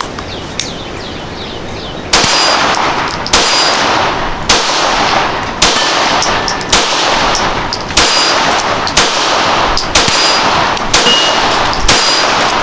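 A Springfield Armory 1911 Garrison 9mm pistol fired about ten times at a steady pace of roughly one shot a second, starting about two seconds in, each report trailing off in a short echo. The rounds are 115-grain CCI Blazer Brass full metal jacket range ammunition.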